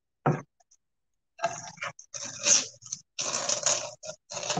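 Masking tape being peeled off a freshly painted barn quilt board and crumpled in the hand. One short pull comes first, then a run of longer, noisy pulls from about a second and a half in.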